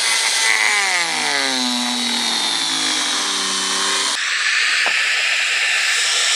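An electric power tool works iron in a blacksmith's shop with a steady, loud hiss. From about half a second in, its motor pitch drops as it takes the load. About four seconds in the sound changes abruptly and then runs on steadily.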